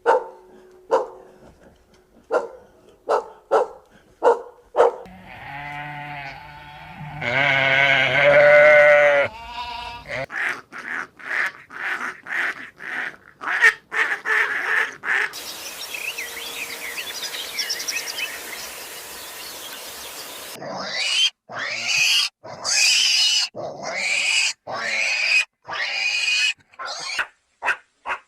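A string of different farm-animal calls in quick succession, pig sounds the most prominent, ending in a long run of repeated dog barks.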